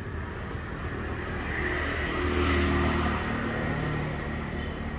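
A motor vehicle driving past, its engine and road noise growing louder to a peak about halfway through, then fading away.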